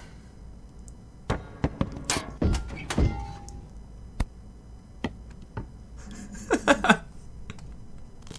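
Irregular thuds, taps and knocks from actors and props moving on a film set, with no music. The knocks come in a quick run early on, then singly, and end in a loudest cluster of several knocks about six and a half seconds in.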